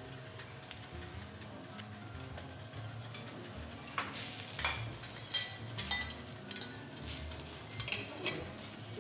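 Vegetables sizzling on a teppanyaki steel griddle. From about four seconds in, the chef's steel knife and spatula clink and scrape sharply against the hot plate several times, with a brief metallic ring.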